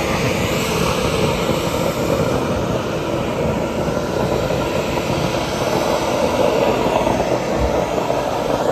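Steam locomotive's boiler blowdown valve blasting steam and water out the side in a loud, steady rush. The blowdown churns the boiler water to break up and eject scale from inside the boiler.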